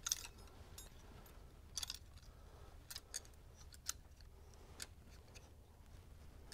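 Faint, scattered metallic clicks as fingers work a snap ring into its groove in a Sportster clutch hub. There are about half a dozen clicks, the loudest right at the start.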